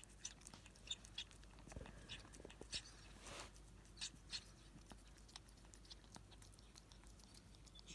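A ferret eating soft pudding and cream from a bowl: faint, irregular wet licking and chewing clicks, with a short soft rush of noise a little past three seconds in.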